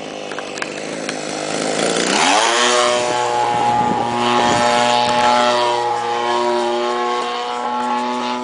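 52cc two-stroke gasoline engine of an Edge 540 RC aerobatic plane, running at part throttle and then revving up sharply about two seconds in to a high, steady drone as the plane is throttled up into a climb.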